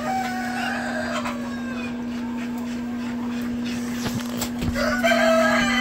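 Chickens clucking, and a rooster starting a long crow near the end, over a steady low hum. A few knocks come about four seconds in.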